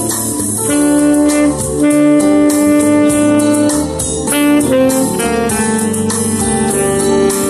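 Tenor saxophone played by a beginner, a slow melody of a few long held notes, the longest lasting about two seconds near the middle.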